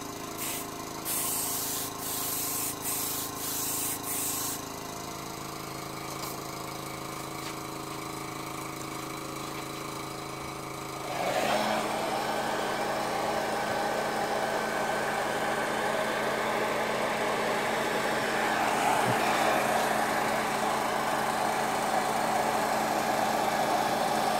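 Airbrush spraying paint in several short hissing bursts for the first four seconds or so, over the steady hum of a small air compressor. About eleven seconds in, a louder steady whirring hiss starts and keeps on as a handheld spray gun lays a coat of red paint onto the foam wing.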